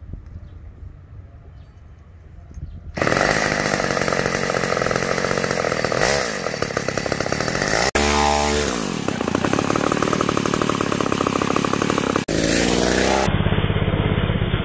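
Two-stroke chainsaw engine fitted to a bicycle, running loud and fast. It comes in abruptly about three seconds in, and its pitch dips and glides down a couple of times as it passes.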